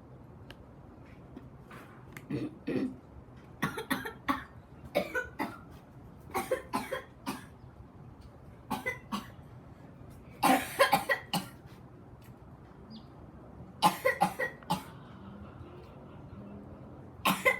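A young person coughing hard in repeated fits, choking after a grape jelly fruit went down the throat.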